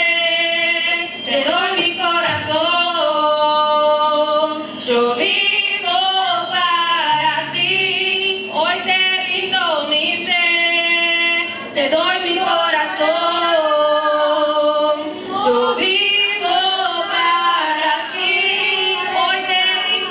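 Youth choir, mostly female voices, singing a Spanish-language Pentecostal worship song in long held notes, amplified through microphones.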